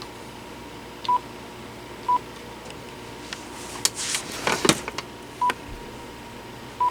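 Panasonic KX-TG6841 cordless phone sounding short, single-pitch key beeps as its buttons are pressed, four in all. A cluster of clicks and handling rattle comes in the middle.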